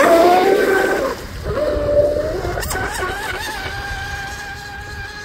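High-pitched whine of an RC F1 tunnel powerboat's 3674 1650 kV brushless motor running at speed on 6S. It is loudest as the boat sweeps past close by, the pitch shifting with the throttle, then holds steady and fades as the boat runs away. A short sharp click comes about halfway through.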